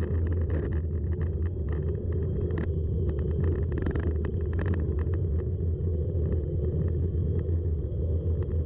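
Gravel bike descending fast on a rough gravel road: a steady rumble of the tyres over the surface with scattered small ticks and clicks of grit and stones.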